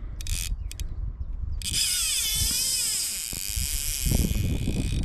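Click-and-pawl fly reel buzzing as a large rainbow trout runs and pulls line off it. It comes in short bursts at first, then runs as a continuous buzz from about a second and a half in, its pitch wavering with the speed of the run.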